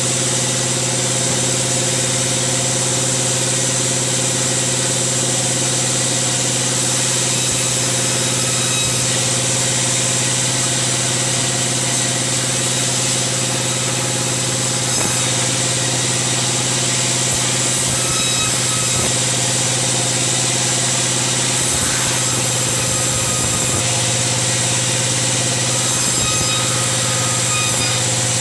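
Large sawmill bandsaw running with a steady loud hum as it rips a sengon (albasia) log lengthwise into slabs. A high hiss from the blade in the cut comes and goes every few seconds.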